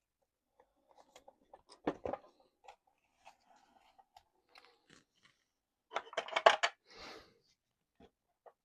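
Clicks and rattles of small plastic and metal RC truck parts being handled and worked on, with a short run of louder clicks about six seconds in followed by a brief scrape.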